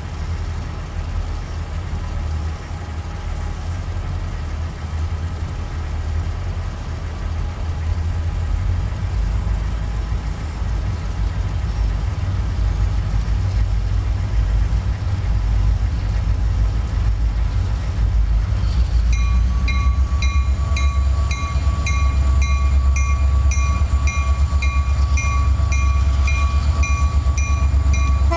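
Loaded freight train approaching behind a GP40-2W diesel locomotive: a low engine and rail rumble that grows steadily louder. About two-thirds of the way in, a bell starts ringing in a steady rhythm.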